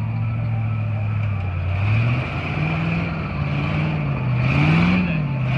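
Off-road competition truck's engine running steadily, then revving up and down in several surges from about two seconds in, loudest near the end.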